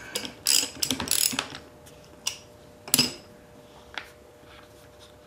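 Hand socket ratchet clicking in quick bursts as it turns a fitting on a dual-action air sander, followed by a few separate sharp clacks, the loudest about three seconds in.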